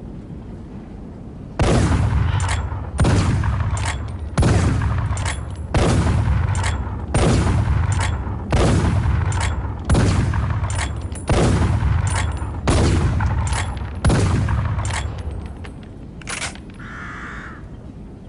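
Winchester Model 1892 lever-action saddle ring carbine fired ten times in steady succession, about one shot every second and a half, each shot trailing off in a long echo. A lighter click falls between shots as the lever is worked to chamber the next round, and a few softer mechanical clicks follow the last shot.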